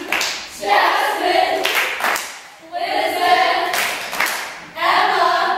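A group of young women singing together without accompaniment in short phrases, clapping their hands along.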